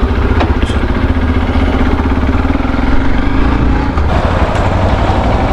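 Motorcycle engine running with a steady low rumble, heard from the rider's seat; about four seconds in the sound changes suddenly.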